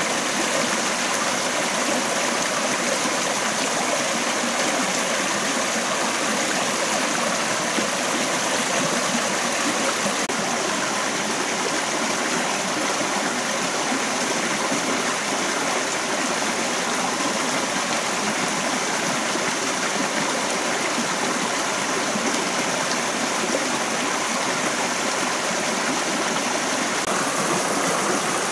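A rocky stream running over stones and small cascades: a steady, even rush of water.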